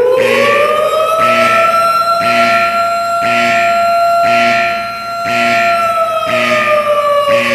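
Emergency alert alarm: a loud wailing siren tone climbs over the first couple of seconds, holds steady, then slowly sinks near the end. A second tone pulses about once a second beneath it.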